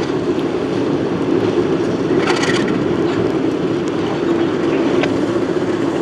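Alco RS11 diesel locomotive's V12 engine running steadily as it moves slowly with a cut of tank cars, with a short burst of hiss about two seconds in.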